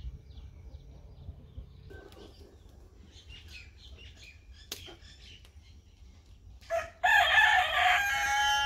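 A rooster crows once near the end, one long call of about two seconds that wavers and then holds its pitch. Before it there is only a faint low hum with a few light clicks.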